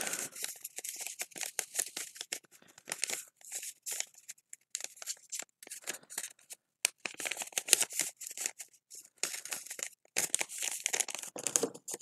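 Folded paper pieces rustling and crinkling by hand as they are fitted together and their corners creased, in quick, irregular crackles.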